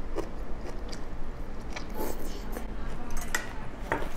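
A person biting and chewing a mouthful of stir-fried water spinach, with wet mouth sounds and scattered small clicks.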